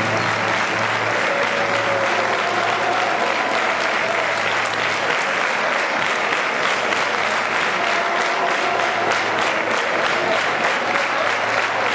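Theatre audience applauding a ballet curtain call. Faint orchestral tones fade out near the start, and about halfway through the clapping falls into a steady unison beat.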